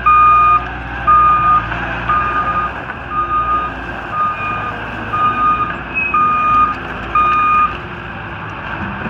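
Backup alarm on a CAT 259D skid steer beeping about once a second, eight beeps, as the machine reverses. Its 3.3-litre CAT diesel engine runs underneath.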